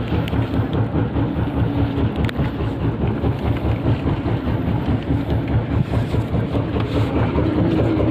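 Fishing boat's engine running steadily with a rapid low pulsing.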